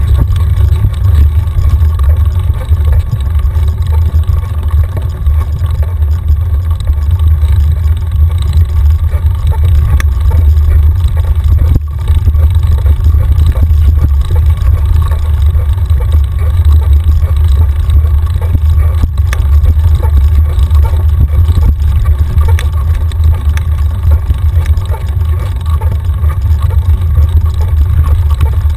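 Loud, steady low rumble of wind buffeting and trail vibration on a mountain bike's handlebar-mounted action camera as it rolls along a dirt track, with a few sharp clicks of the bike rattling over bumps.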